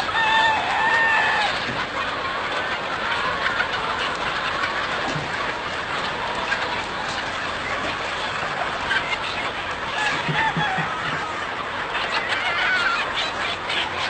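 A large flock of domestic chickens clucking and calling all at once in a dense, steady din. A few louder drawn-out calls stand out near the start.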